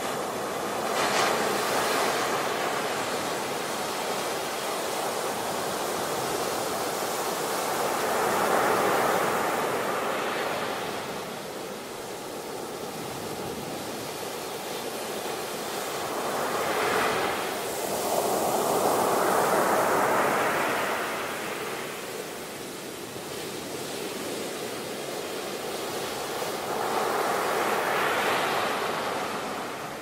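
Beach surf: waves breaking and washing in over a steady hiss of surf, the rush swelling and falling away several times.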